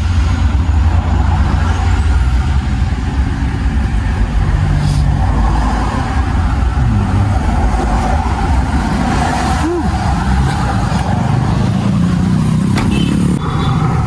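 Steady low rumble of road and engine noise inside a moving car's cabin.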